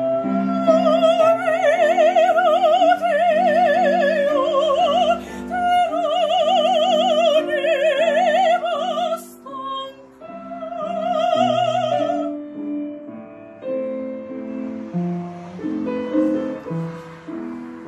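Operatic singing in the soprano range, with a wide vibrato, over piano accompaniment. The voice breaks off about twelve seconds in, and the piano plays on alone.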